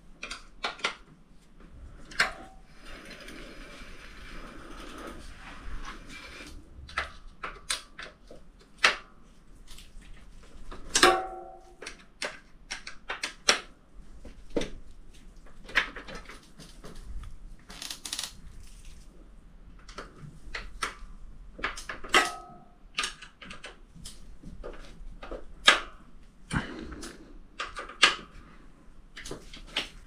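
Scattered sharp clicks and metallic taps of hand tools and parts being worked at a bicycle's hydraulic disc brake caliper, a few of them ringing briefly. A soft hiss runs for a few seconds near the start.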